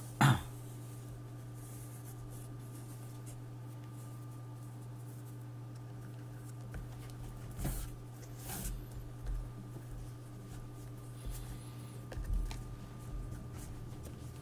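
A single sharp knock with a short ring just after the start, over a steady low electrical hum. Faint scattered handling and rubbing noises come in about halfway through.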